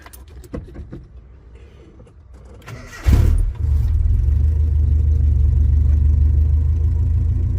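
1986 Nissan D21 pickup's engine being started with a freshly replaced clutch pedal switch: after a few quiet clicks it cranks briefly and catches about three seconds in, then runs at a steady idle. It starts really strong, showing that the new switch has cured the earlier click-and-no-start.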